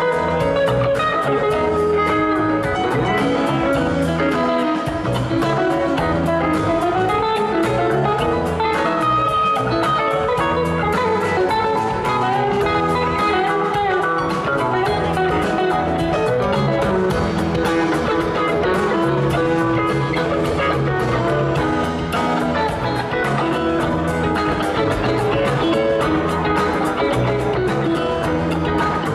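A live rock band playing an instrumental, guitar-led passage over bass and drums.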